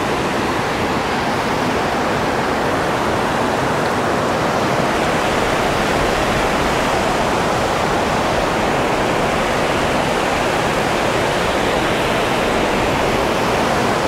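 Lower Gooseberry Falls running: a loud, steady rush of water pouring over the falls, heard close up.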